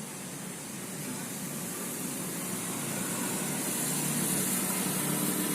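Circular sawmill machinery running steadily, a low engine hum under a high hiss, growing gradually louder.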